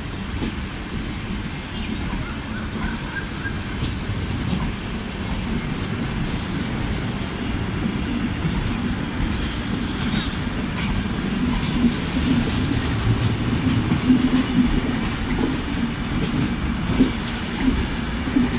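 Express train passenger coaches rolling past as the train pulls out: a steady rumble of wheels on rail that grows a little louder, broken by a few sharp high clicks.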